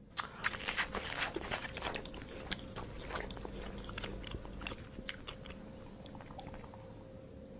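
A giraffe chewing and crunching its food: a dense run of irregular crackly bites and munching.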